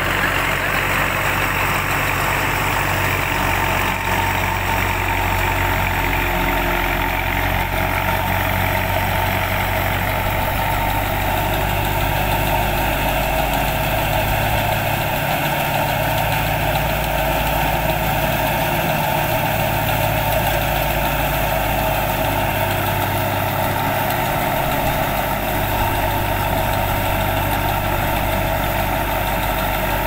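Belarus tractor's diesel engine running steadily under load as it drives a wheat thresher, the engine and the turning thresher making one continuous mechanical drone.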